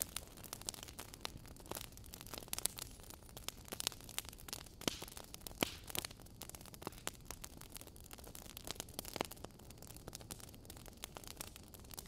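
Burning logs in a wood fire crackling: irregular sharp pops and snaps, several a second and of varying strength, over a steady faint rush.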